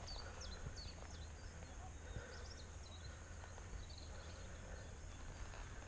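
Faint bird chirping: runs of quick, falling high notes, several a second, over a low steady rumble.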